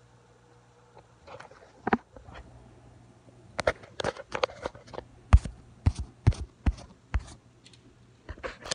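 About a dozen sharp, irregular knocks and taps, starting about a second in, over the low steady hum of an aquarium canister filter.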